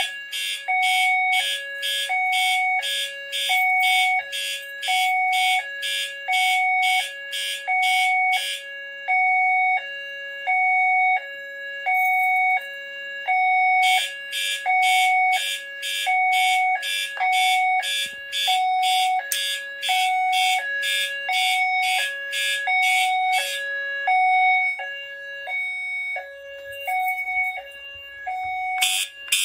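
Fire alarm horns sounding on a Notifier NFS2-640 system coded to California code. A two-tone hi-lo signal alternates steadily throughout. Over it, a harsher pulsing horn sounds for about ten seconds, stops for about five, sounds again, stops, and starts again near the end.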